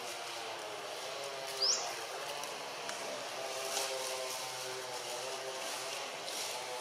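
Outdoor ambience: a steady low background hum, with one short, rising bird chirp a little under two seconds in.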